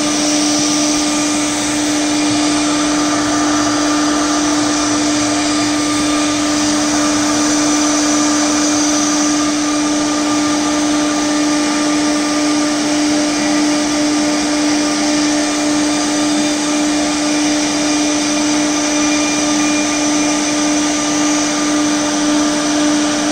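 Raise3D FDM 3D printer running while printing PLA: a steady whir of its cooling fans and motors, with a constant humming tone.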